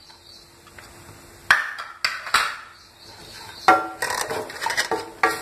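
Wooden spoon stirring and scraping a dry spice mix in a nonstick frying pan, with a few sharp knocks of the spoon against the pan. The knocks start about a second and a half in, after a quiet start.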